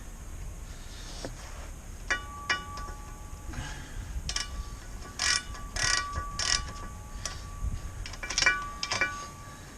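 Metal tools and parts clinking and knocking together, about a dozen irregular strikes, several leaving a short metallic ring, during work on the driveshaft's U-joint.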